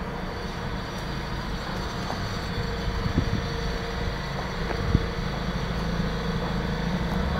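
Mazda RX-8's twin-rotor rotary engine idling steadily, with two brief knocks about three and five seconds in.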